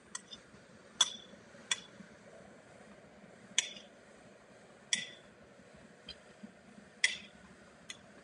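A metal utensil clinking and tapping against a ceramic plate and a stainless bowl as cream cheese is scooped off and tucked into the dish: about eight sharp, irregular clinks.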